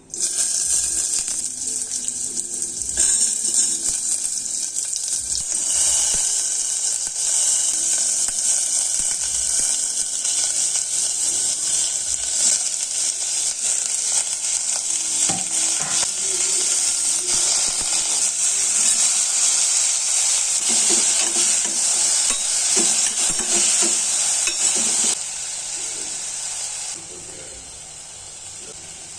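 Vegetables sizzling in hot fat in a pan and stirred now and then with a spoon, a loud steady hiss that grows quieter near the end.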